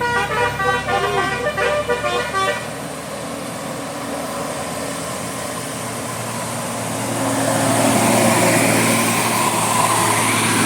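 Indonesian bus 'telolet' multi-tone air horn playing a quick tune of stepping notes, which stops about two and a half seconds in. After it comes steady vehicle noise that grows louder about seven seconds in.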